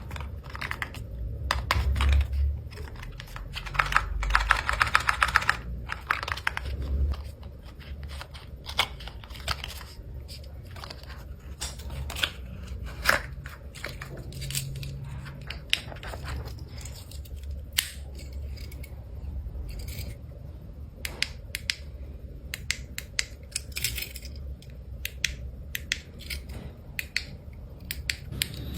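Irregular clicks and taps of a small plastic panic-alarm button being handled, with a quick rattle of clicks about four seconds in.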